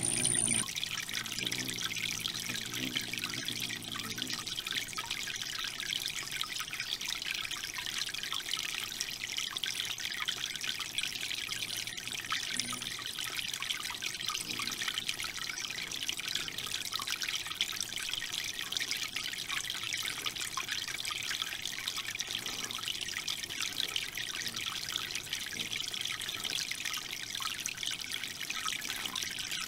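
Water trickling and dripping steadily from the tiers of a small three-tier garden fountain into its basin.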